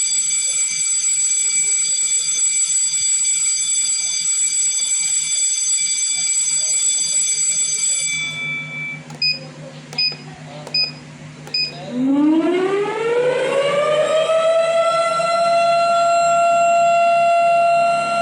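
Automatic school bell scheduler sounding its alarm tones: a steady buzzing tone for about eight seconds, then four short beeps, then a siren that winds up in pitch over about three seconds and holds steady.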